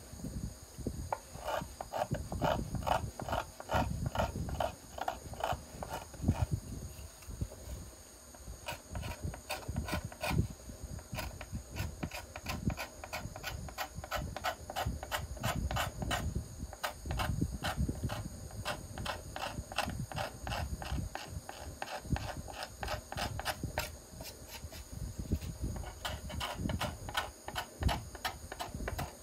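A curved steel card scraper shaving the arching of a flamed maple violin plate, in quick repeated strokes of about three a second, pausing briefly twice. This is the final smoothing of the arch after planing.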